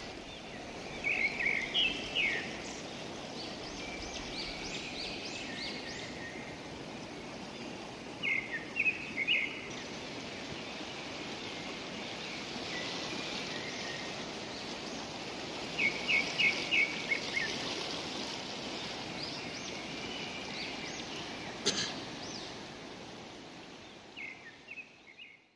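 Steady rushing of a broad river, with a bird calling in short runs of quick, high chirps every several seconds. One sharp click sounds about three-quarters of the way through.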